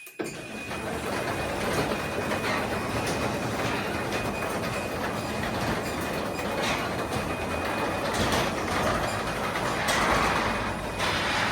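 Craftsman 3/4 horsepower belt-drive garage door opener starting suddenly and running steadily, closing the door by its timer-to-close.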